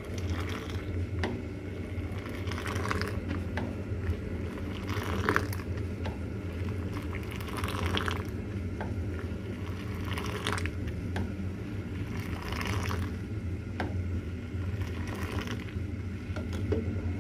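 Boiling milky tea (desi chai) in a steel saucepan being aerated with a ladle: ladlefuls poured back into the pan from a height, splashing into the froth again and again, over a steady low hum.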